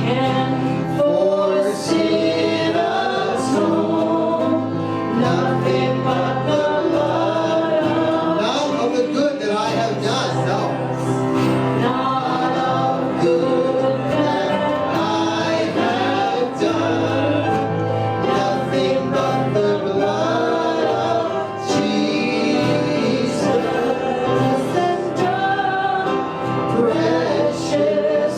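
Church worship music: group singing of a gospel hymn with instrumental accompaniment.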